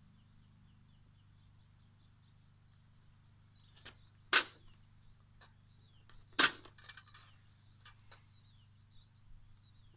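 A knife cutting into a power cable's plastic outer sheath: two loud sharp cracks about two seconds apart, with a few fainter clicks and scrapes around them.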